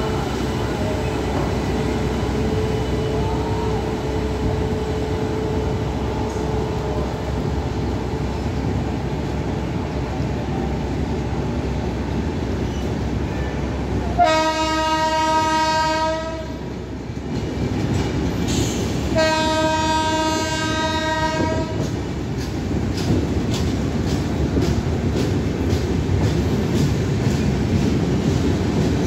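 Passenger coaches of an Indian Railways express rolling past with a steady rumble of wheels on rail. About halfway through a train horn sounds two long blasts of about two seconds each, a few seconds apart. In the last few seconds the wheels click rhythmically over the rail joints.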